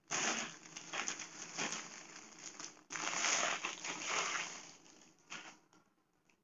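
Clear plastic packaging crinkling as a folded garment is handled and drawn out of it: loud rustling at the start and again about three seconds in, fading away near the end.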